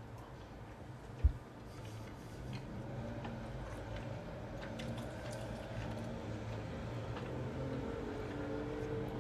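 Faint chewing of a mouthful of gnocchi: small soft clicks over a low steady hum, with a single dull thump about a second in.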